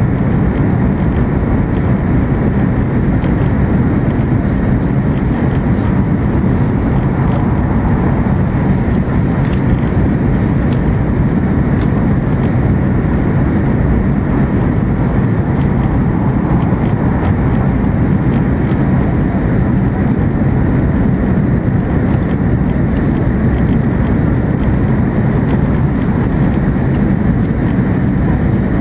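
Steady, loud running noise of an E2 series Shinkansen travelling through stations without stopping, heard inside the passenger car: an even low rumble with a faint hum on top.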